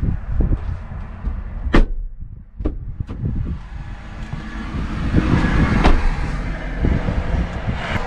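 Mercedes-AMG A35 saloon's driver's door unlatching and opening with two sharp clicks, then the driver climbing into the seat with rustling and a knock.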